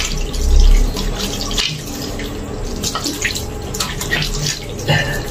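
Tap water running into a sink, with irregular splashes as cupped hands bring water to the face to rinse off foaming facial wash.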